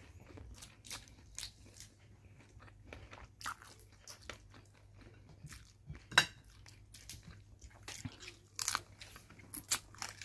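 Close-miked eating of shell-on butter shrimp: irregular chewing and crunching with scattered small clicks and cracks of shell, a sharp louder crack about six seconds in.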